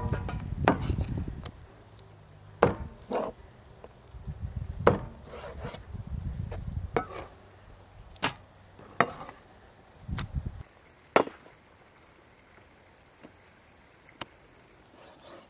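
Meat cleaver striking through raw meat onto a wooden cutting board: about a dozen sharp, irregular chops, the loudest about eleven seconds in and fewer near the end, with a low rumble under some of them.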